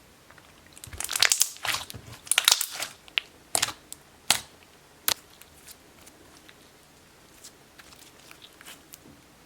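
Thick glossy slime being squished and pressed by hand, making dense crackling clicks for a couple of seconds, then a few sharp pops and scattered faint clicks.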